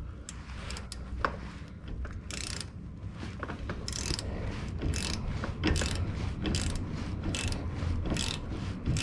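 Ratcheting combination spanner clicking in quick back-and-forth strokes, about two clicks a second. It is running a nut down onto a front stabilizer link's ball-joint stud while an Allen key keeps the stud from spinning.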